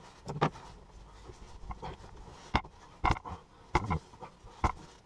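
Irregular short knocks and handling noises, about five or six, as a steel axe on a wooden handle is turned over and set down on a towel-covered bench.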